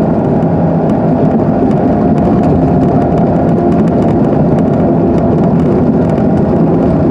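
Car engine and road noise heard from inside the cabin while driving, a steady even drone.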